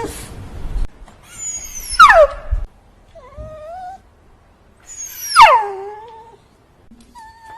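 Cat meowing four times: two loud calls that slide sharply down in pitch, about 2 and 5 seconds in, and two softer, shorter meows between and after them.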